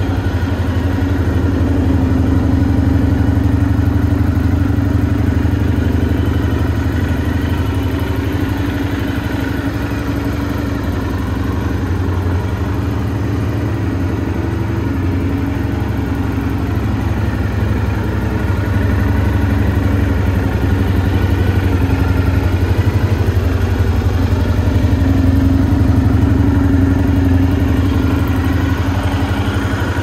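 Honda RVF400 NC35's 400 cc V4 engine idling steadily through an aftermarket Penske silencer.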